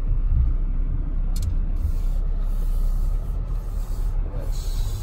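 Steady low rumble inside the cabin of a Porsche Cayenne SUV as it creeps down a steep, rough off-road slope.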